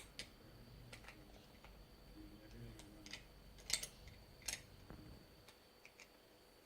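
Faint, irregular clicks and taps of small plastic Lego bricks being handled and pressed together, the loudest pair of clicks a little past the middle.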